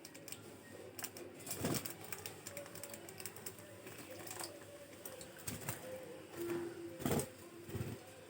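Pet budgies chattering softly while bathing, with scattered small splashes and a few louder splashing bursts, about two seconds in and twice near the end.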